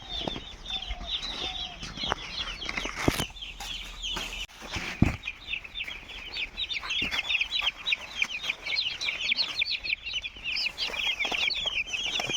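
A crowd of broiler chicks peeping, many short, high, falling calls overlapping, growing denser in the second half. A few sharp knocks and a dull thump about five seconds in.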